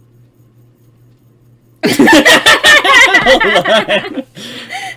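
A sudden burst of loud laughter about two seconds in, rapid repeated ha-ha pulses that fade out after a couple of seconds.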